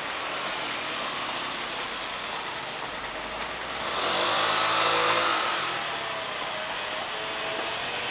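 Steady distant traffic noise, with a motor vehicle passing close about four to six seconds in, its engine sound swelling and then fading.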